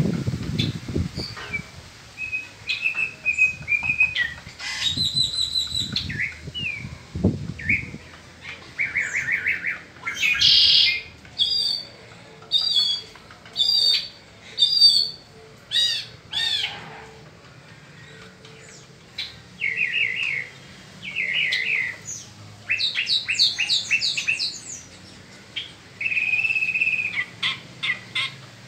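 Caged mockingbird singing a varied song of short chirped and whistled phrases, each phrase repeated several times, with brief pauses between them. A few low bumps come in the first second and again about seven seconds in.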